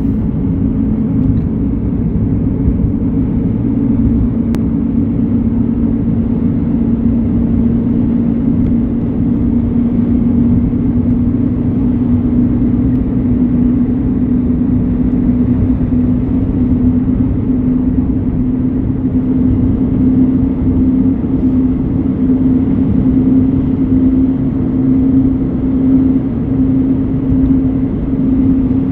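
Vehicle engine and road noise heard from inside a car, a steady low hum whose pitch creeps up slightly.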